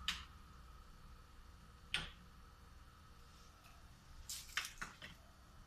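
Clicks from lighting a gas stove burner with a long utility lighter and turning the burner knob: a sharp click about two seconds in and a quick run of several clicks near the end.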